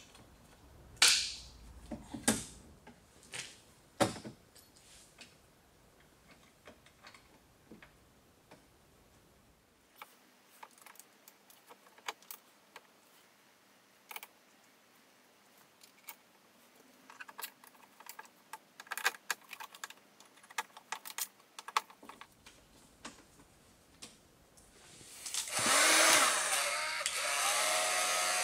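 Sharp plastic clicks and knocks as a car door speaker's connector is plugged in and the speaker is fitted back into the door, loudest in the first few seconds. Near the end a heat gun is switched on, rises briefly in pitch and then blows steadily on its low setting.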